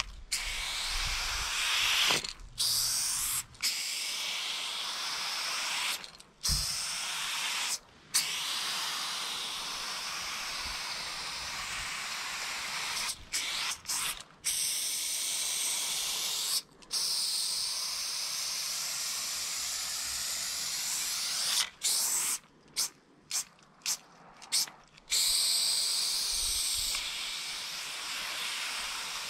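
Aerosol spray paint can hissing in long continuous sprays broken by brief pauses. A run of quick short sprays comes near the end.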